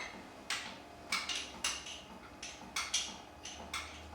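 Light, irregular clicks and clinks of kitchenware against a plate, about a dozen short taps.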